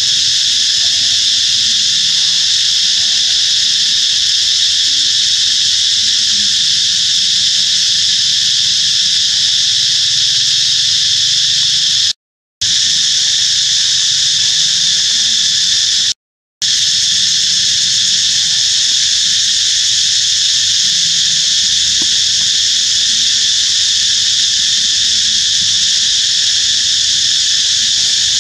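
Loud, steady high-pitched insect chorus, a dense unbroken buzz, that cuts out twice for about half a second.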